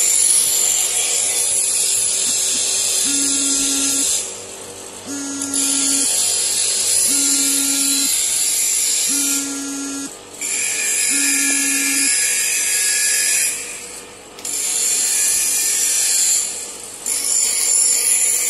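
Bench grinder wheel grinding a steel hand tool held against it, a loud high-pitched grinding noise that drops away briefly about four times as the tool is lifted off and set back on. A short tone beeps five times, about every two seconds, through the first part.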